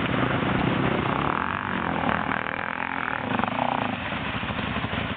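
Trail bike engine revving hard and unevenly as the bike is ridden through a river crossing.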